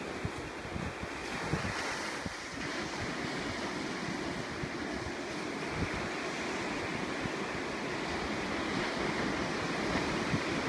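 Ocean surf breaking on the beach, a steady wash of waves, with wind buffeting the microphone in gusts.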